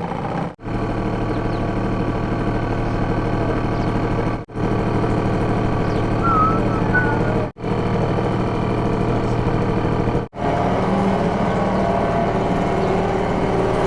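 British Seagull single-cylinder two-stroke outboard running steadily at low canal speed, pushing a small dinghy, with an even, unchanging note. The sound breaks off for an instant four times.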